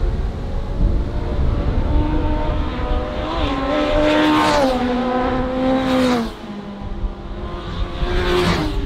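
Classic Japanese superbike racing motorcycles going past at high revs, one after another. A loud pass comes about four seconds in, its engine note stepping down in pitch before dropping away suddenly, and another bike passes near the end.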